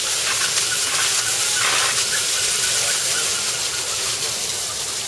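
Steady hiss of water spraying, with faint voices behind it.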